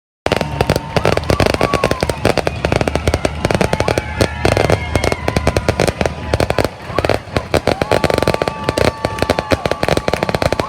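Fireworks display going off in quick succession: dense rapid bangs and crackling, with held and gliding whistling tones over them. The sound cuts in abruptly just after the start.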